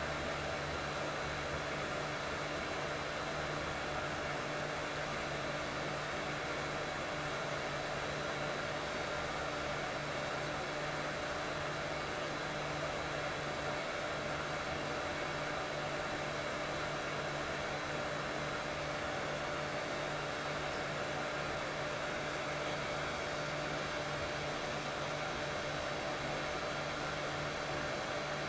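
Steady white noise for soothing a colicky baby to sleep, a constant hiss with a low hum under it, unchanging throughout.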